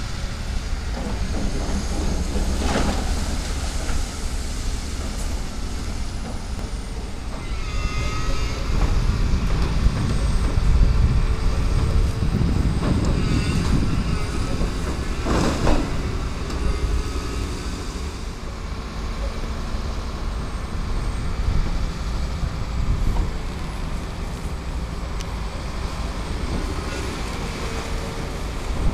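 Volvo excavator's diesel engine running steadily under load while its arm pulls down brick walls, with crunching, falling masonry. Sharp crashes come near 3 seconds and 15 seconds in, and brief high squeals sound around 8 and 13 seconds in.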